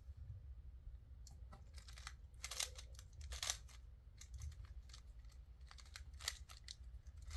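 Plastic 3x3 Rubik's cube being turned by hand: faint, irregular clicks and scrapes as its layers are twisted, about a dozen short strokes at uneven spacing.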